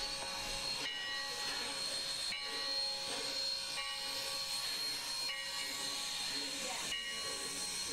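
Steam locomotive sound: a steady hiss of escaping steam with faint steady tones running through it.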